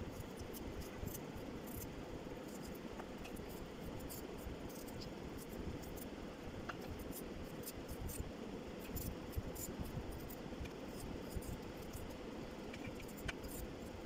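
Kitchen knife cutting raw potato slices into sticks, making irregular crisp clicks and light scrapes as the blade goes through, over a steady low background rumble.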